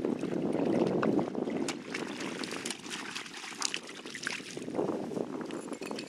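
Lake water lapping against shore rocks, loudest in the first second or so. From about two to four and a half seconds in comes a run of sharp splashes and clicks as a hooked lake trout is drawn through the shallows onto the rocks.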